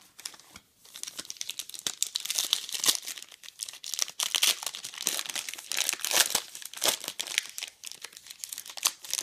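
Foil wrapper of a 2009 Bench Warmer Archive trading-card pack crinkling and tearing as it is opened by hand. It is dense and crackly, starting about a second in.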